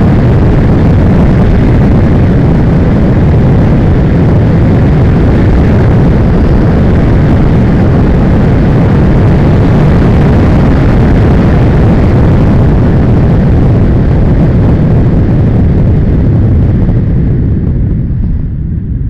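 Wind buffeting a vehicle-mounted camera's microphone, with road rumble, while riding along a dirt road. The noise is loud and steady, then eases off near the end as the ride slows.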